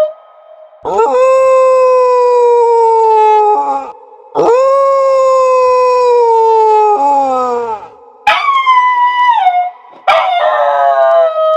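Dog howling: four long, drawn-out howls with short pauses between, each holding its pitch and then sliding down at the end. The third is shorter and falls in steps, and the fourth starts near the end.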